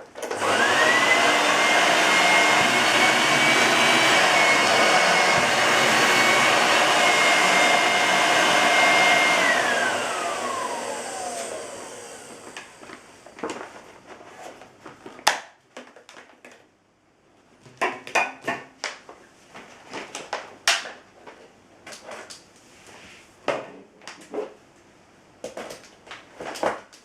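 Vorwerk VK-117 upright vacuum cleaner's 250 W bypass motor switched on, its whine rising quickly to full speed and running steadily for about nine seconds, then switched off and winding down with a falling whine. Scattered clicks and knocks follow for the rest of the time.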